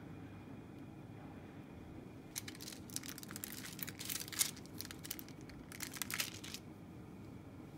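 Thin plastic film around a cheese slice crinkling as it is handled and peeled. It comes as a run of quick crackles starting a couple of seconds in and lasting about four seconds.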